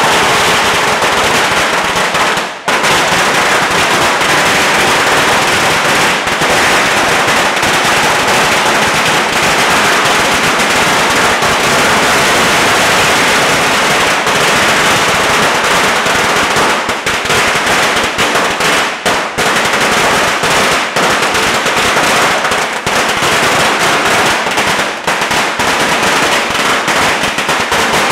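A long string of firecrackers, a 100,000-cracker Chinese New Year string, exploding in a dense, unbroken rapid-fire crackle. The bangs are loud and continuous, with one short lull about two and a half seconds in and a few brief dips later on.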